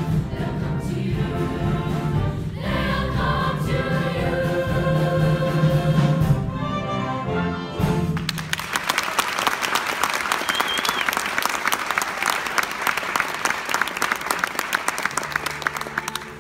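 Junior show choir holding the final chord of a song over instrumental accompaniment, cutting off about eight seconds in. Audience applause follows.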